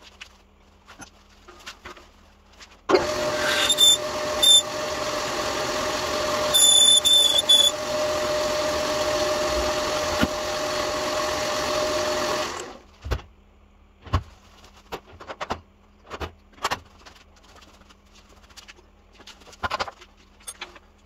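Metal lathe starts about three seconds in and runs steadily with a hum for about ten seconds, with a few brief high squeals as the cutter works the bronze workpiece, then stops. Scattered clicks and knocks follow.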